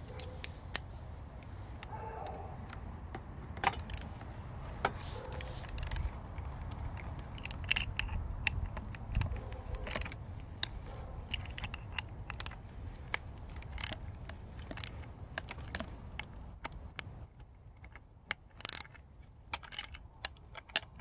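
Irregular metallic clicks and clinks from a hand ratchet and steel bolts as the handlebar mount bolts are fitted and tightened, some clicks coming in quick runs. A steady low rumble runs underneath.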